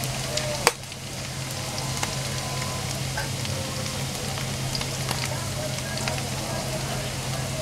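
Finely chopped garlic frying in hot oil with mustard and cumin seeds in a steel kadhai, being lightly browned: a steady sizzle with many small pops and crackles, and one sharp click about a second in. A steady low hum runs beneath.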